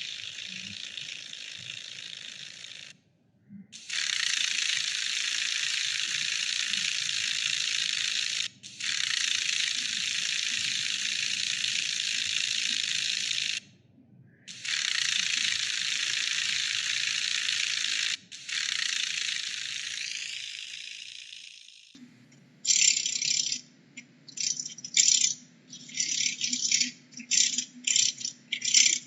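Dragonfly wings buzzing: a dry, rattling whir in long steady stretches of several seconds with brief breaks, the last one fading away. Near the end it turns to quick, stop-start rattling bursts.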